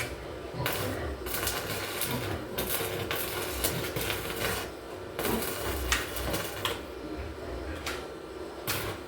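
Electric arc welding on a steel pen door: an irregular crackle that starts and stops in several short runs of up to a second or so.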